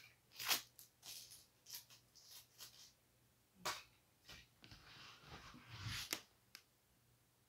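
Faint, irregular clicks and rustles of small things being handled, the loudest about half a second in, with a longer low rustle around five to six seconds in; the vacuum cleaner is off.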